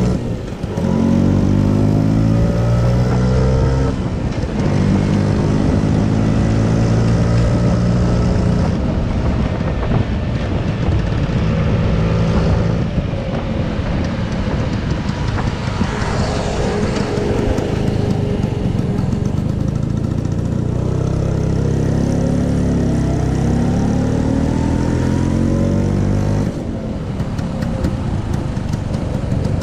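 A vintage Vespa scooter's two-stroke single-cylinder engine running under way with wind rushing over the microphone. Its pitch climbs as it pulls, drops back abruptly about four seconds in, then climbs again later and drops back near the end.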